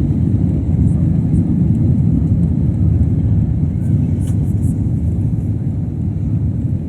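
Steady low rumble of a jet airliner's engines and rushing air, heard inside the passenger cabin, with a few faint clicks about four seconds in.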